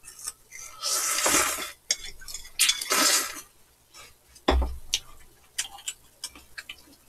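Eating sounds: chopsticks and spoons clicking and clinking against bowls, with two longer noisy stretches of noodle slurping about one and three seconds in. A low thump comes a little past halfway.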